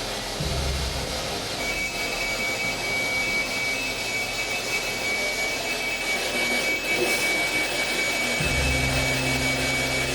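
Hotel ice machine running with a loud, steady mechanical whoosh. A steady high-pitched tone joins it about a second and a half in, and a deeper hum swells briefly near the start and again near the end.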